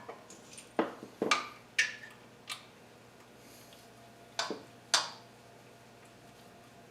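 Sharp metallic clinks and knocks of hand tools on engine parts, about seven irregular strikes, some with a brief ring.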